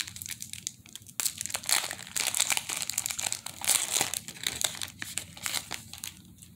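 Foil wrapper of a trading-card pack crinkling in the hands as it is torn open, a rapid run of irregular crackles that dies away near the end.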